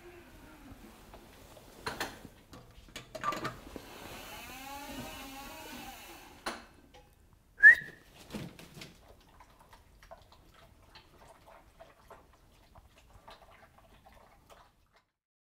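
A few knocks of a stainless steel dog bowl and a few seconds of rushing noise. About eight seconds in comes a single short, sharp whistle, the signal that releases a trained assistance dog to eat, followed by faint clicks of the dog eating from a steel bowl.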